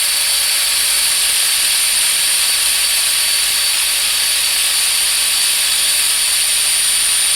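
Router spindle on a home-built Arduino-controlled CNC machine running steadily with a high-pitched whine, cutting around a circle in softwood.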